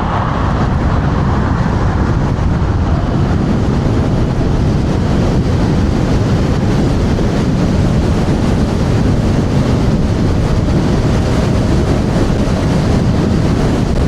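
Loud, steady rush of wind buffeting a body-worn DJI Mic Mini while riding an electric scooter at over 40 mph into strong, gusty wind.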